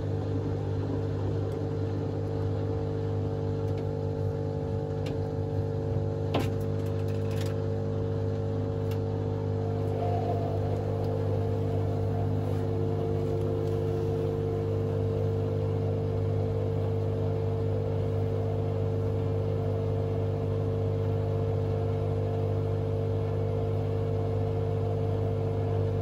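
Hotpoint Aquarius WMA32 washing machine's motor turning the empty drum at low speed at the start of a fast spin, a steady hum with a few light clicks about six to seven seconds in.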